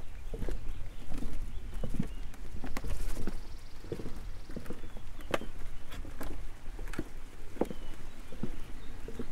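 Irregular knocks and clatter as a loaded single-wheel hiking cart rolls over wooden boardwalk planks, with a low rumble underneath.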